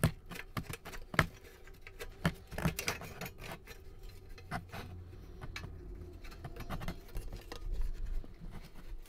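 Irregular small clicks and taps of metal and rubber parts being handled and adjusted: a bolt with stacked black washers being worked on a rusty steel strip. The clicks come thickest in the first few seconds.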